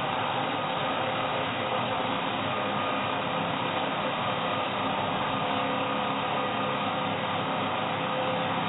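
Angle grinder cutting through steel all-thread rod: a steady, unbroken grinding whir with a faint held tone in it.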